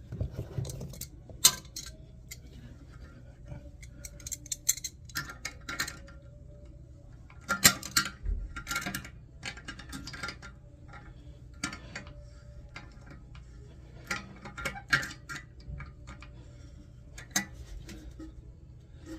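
Hand tools clicking and clinking irregularly as a wrench tightens the loose bolts holding a toilet tank to the bowl.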